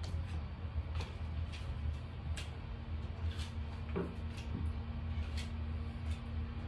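Steady low room hum with faint scattered clicks. About four seconds in, a short falling tone settles into a steady higher hum.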